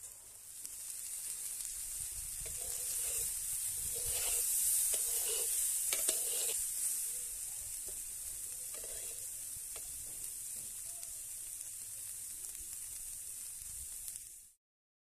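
Cauliflower florets sizzling as they fry in oil in a black kadai, stirred with a flat metal spatula that scrapes and clicks against the pan. The sizzle swells after the first second, is loudest in the middle, and cuts off suddenly near the end.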